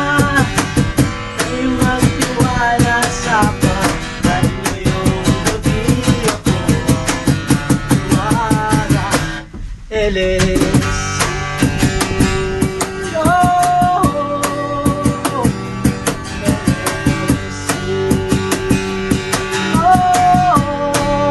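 Acoustic guitar strummed to a cajon beat, with young men singing along. The music cuts out for a moment about halfway through, then picks up again.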